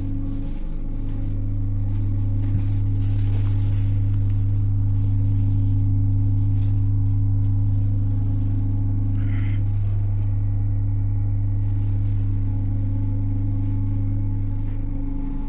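ED9M electric multiple unit giving off a steady low electrical hum with a few overtones, unchanging throughout.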